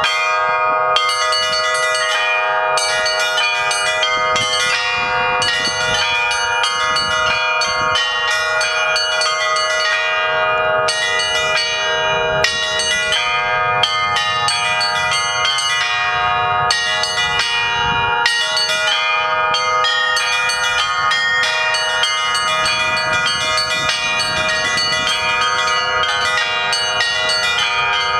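Church bells of the Kizhi belfry being rung in a continuous Russian Orthodox peal. Many bells of different pitch are struck in quick succession, about one or more strikes a second, and their tones overlap and keep ringing.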